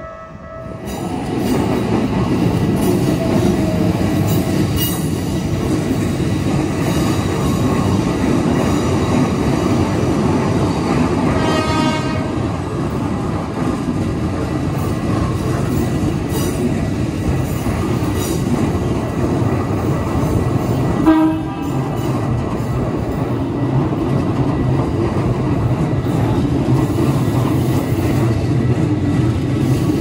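An electric commuter train passing close by over a level crossing: a steady rumble of wheels on rail that swells in about a second in, with a short horn blast about 21 seconds in.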